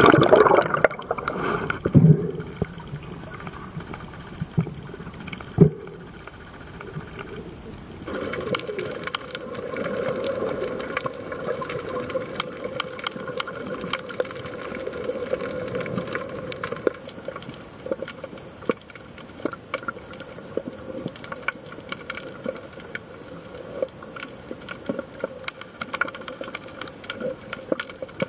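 Underwater sound picked up by a camera below the surface: a muffled splashing at the start as it goes under, then a steady hiss of moving water filled with fine crackling clicks and an occasional knock.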